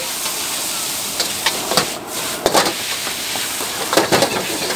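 Noodles sizzling in a wok over a high gas flame, a steady hiss, with the metal ladle clanking and scraping against the wok several times as they are tossed.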